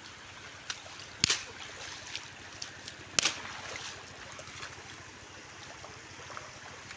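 Shallow water flowing and trickling steadily over a concrete weir apron, with two short sharp sounds about one and three seconds in.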